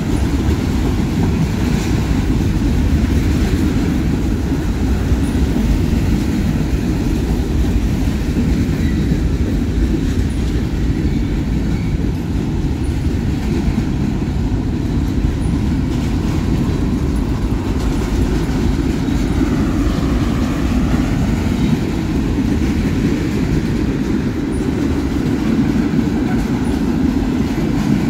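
Freight train of covered hoppers and tank cars rolling past, the cars' wheels on the rails making a steady, deep rolling noise.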